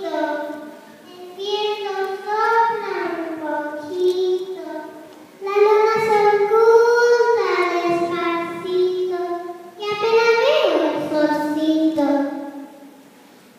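A young girl's voice singing a poem into a hand-held microphone, amplified over a stage PA, in long held notes that glide up and down, with short pauses between phrases and fading near the end.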